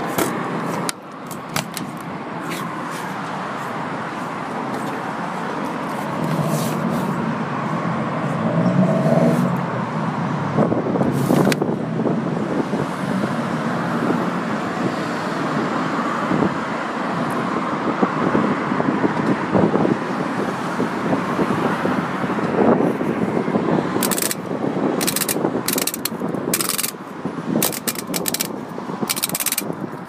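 A steady mechanical noise with occasional knocks. In the last several seconds it gives way to a quick series of clicks as the programme selector dial of a 1980s Hoover Energy Control de Luxe washing machine is turned.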